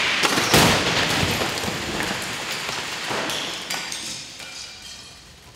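A head-on car-to-car crash test between a 1998 and a 2015 Toyota Corolla. A rush of noise builds up, then the cars hit with a loud crash about half a second in. Scattered clattering of debris and a hiss follow and fade away over the next few seconds.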